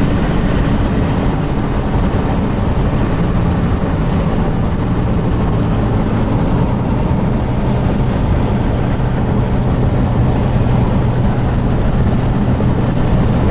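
A car driving along a road: a steady engine hum with road and wind noise, the hum settling into one low tone after a few seconds.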